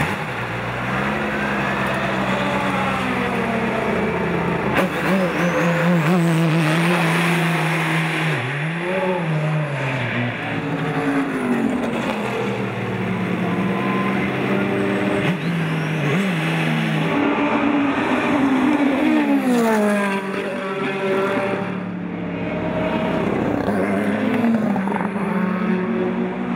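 Peugeot 908 HDi FAP's V12 turbodiesel running, its engine note rising and falling in pitch several times as the car revs and pulls away.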